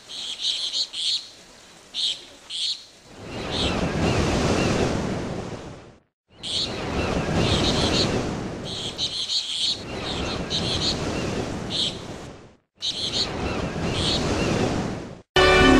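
Birds chirping in short clusters over a rushing noise that swells and fades every few seconds. The sound cuts out abruptly twice.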